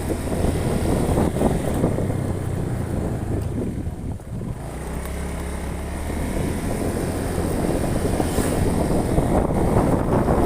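A car driving, with its engine droning and road noise rumbling; the noise eases briefly about four seconds in, then builds again.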